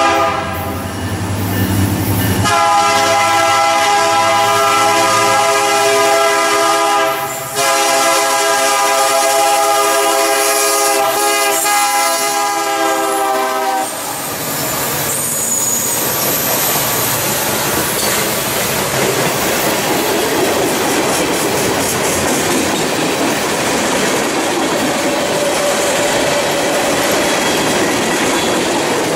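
Norfolk Southern diesel freight locomotive's air horn sounding long, multi-note blasts as it approaches, with a short break about halfway through the horn sequence; the horn stops about halfway through. Then the train's cars rolling past close by, a steady noise of wheels on rail.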